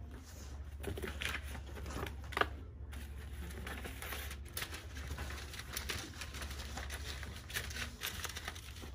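Sheets of paper being handled and leafed through on a desk, with soft rustles and light scattered taps, over a low steady hum.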